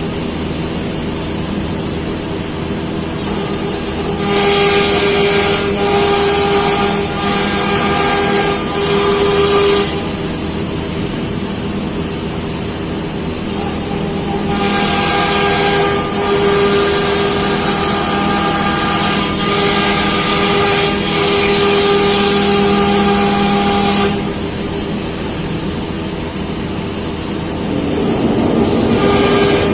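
CNC router spindle running with a steady whine while cutting. A louder, hissing cutting sound comes and goes in spells of several seconds.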